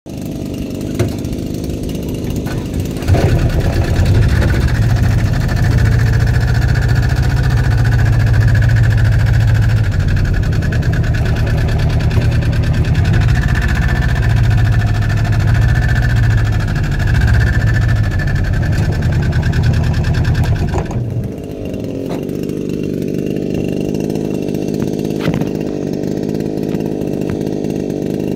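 Small engine of a hedge trimmer running steadily. It picks up about three seconds in and drops to a lower, quieter running note about 21 seconds in.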